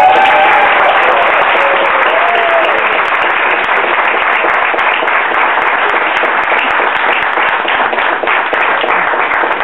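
Audience applauding steadily, with a few voices shouting out in the first couple of seconds.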